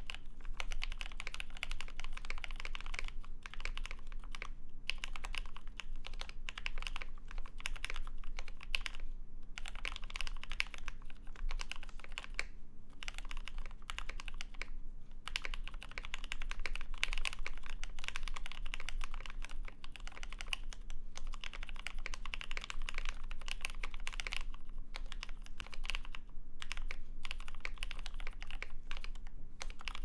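Continuous typing on a Love TKL mechanical keyboard fitted with lubed NOS Cherry MX Vintage Black linear switches, a polypropylene plate and ePBT keycaps: a steady stream of keystrokes broken by short pauses every few seconds.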